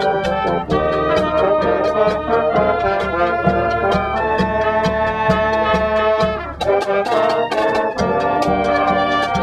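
Brass-band music, trumpets and trombones, over a steady drum beat, with a brief break about two-thirds of the way through.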